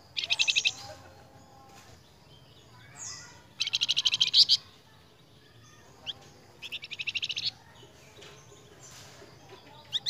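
Flamboyan songbird singing: three fast trills of rapidly repeated high notes, each under a second long, most introduced by a single short note, with a quick sharp call near the end.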